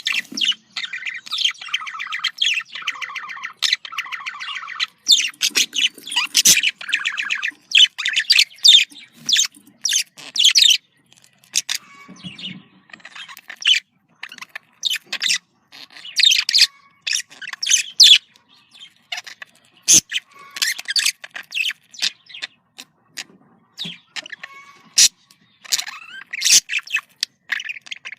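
Budgerigar chattering and warbling: quick runs of chirps and squeaky notes in bursts, broken by short pauses.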